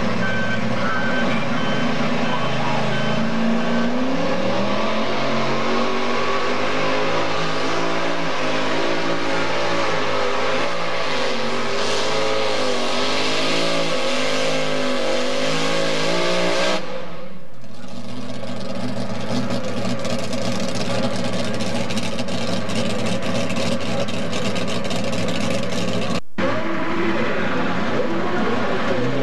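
Modified mini pulling tractor's engine at full throttle under load as it drags a weight-transfer sled, its pitch climbing in the first few seconds and wavering through the pull, then cut off abruptly about seventeen seconds in; a steady engine sound follows.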